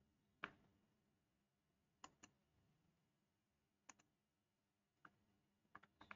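Computer mouse clicking, single clicks and quick pairs every second or two, over near silence.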